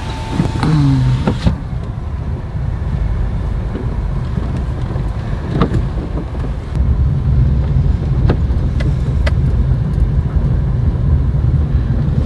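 Inside a car driving on a wet road: a steady low rumble of engine and tyres, louder after about seven seconds, with a few sharp ticks. A short pitched sound comes about a second in.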